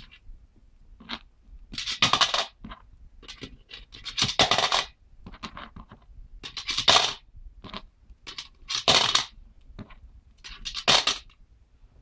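Coins being scraped up off a plastic tub by a Senegal parrot's beak and dropped into a coin bank, clinking and rattling. About five louder rattles come roughly two seconds apart, with lighter scrapes between them.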